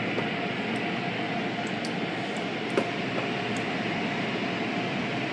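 Water jets of an automatic car wash spraying against the car's windows, a steady rushing hiss heard from inside the car. A faint steady tone runs underneath, and a short sharp knock sounds near the three-second mark.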